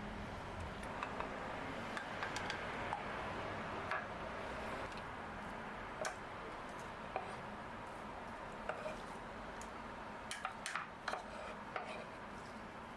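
Scattered light clicks and taps of kitchen utensils and dishes, a cluster of them near the end, over a steady hiss.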